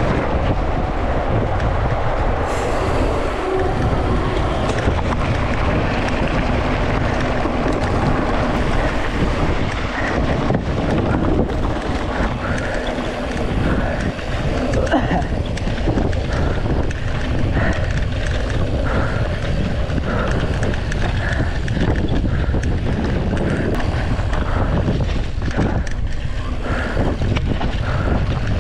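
Mountain bike ridden at race pace on a dry dirt trail, heard from a handlebar-mounted action camera: steady wind buffeting the microphone and tyre rumble, with frequent small knocks and rattles from the bike over bumps.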